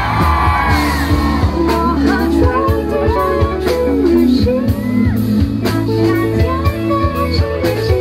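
Amplified live music: a woman singing into a microphone over instrumental accompaniment with a steady bass. The crowd cheers and whoops in the first second or so.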